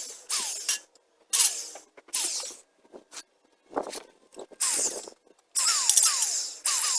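Power drill run in short bursts, its bit biting into pine boards to mark the screw holes. Each burst is quick and crackly, with a brief falling whine, repeated about a dozen times.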